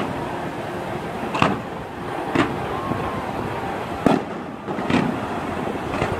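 Aerial fireworks bursting: about six sharp bangs roughly a second apart, over steady background noise.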